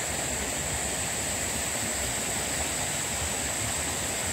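Steady rush of water churning around a Bunyip PA13 ram pump working in a creek, with a steady high-pitched hiss above it.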